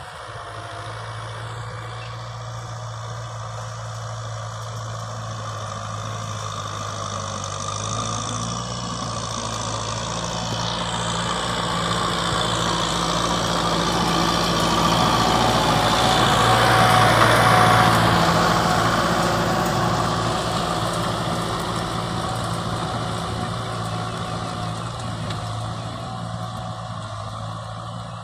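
Kubota M6040 tractor's diesel engine running steadily under load while it pulls a rotary tiller through the soil. It grows louder as the tractor comes close, about two-thirds of the way in, then fades as it moves away.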